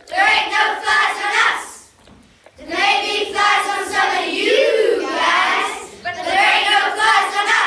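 A group of children singing together in a large hall, in three phrases with short breaks between them.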